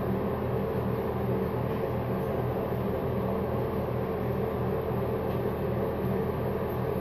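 Steady mechanical hum with a low, even drone that does not change.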